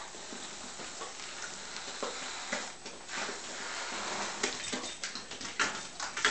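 Whipped cream hissing out of an aerosol can in spurts while a dog licks and smacks at it with wet clicks, the hiss and licking growing busier after about three seconds.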